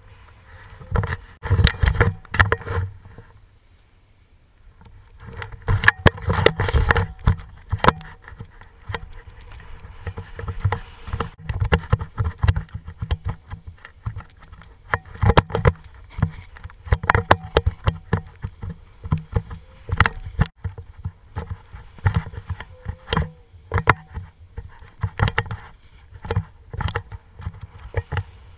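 Snowboard riding down a groomed slope: the board's edges scraping and chattering on the snow in irregular surges, with wind rushing over the microphone of a pole-held action camera.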